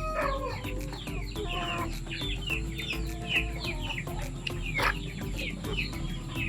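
Chickens clucking, with many short, high chirping calls several times a second.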